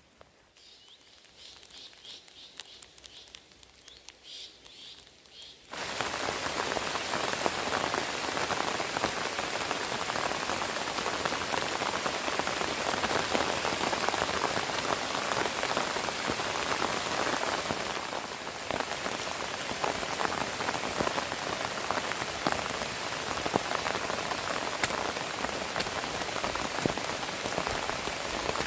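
Faint high chirping, then, about six seconds in, heavy rain begins abruptly: a dense, steady patter of drops on a surface that holds to the end.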